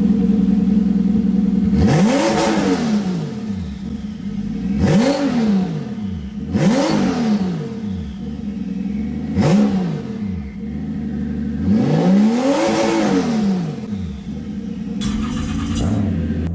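Single-turbo Toyota 2JZ straight-six engine idling and being revved five times, each rev rising and falling back to idle.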